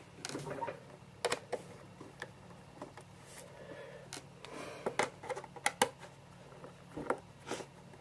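Faint, scattered small clicks and taps of tiny screws and a screwdriver being handled on a laptop's metal bottom case.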